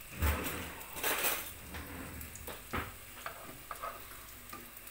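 Zucchini fritters sizzling in shallow oil in a nonstick frying pan, with metal utensils scraping and clicking against the pan as they are lifted and turned. A couple of louder scrapes come in the first second or so, then a few sharp clicks.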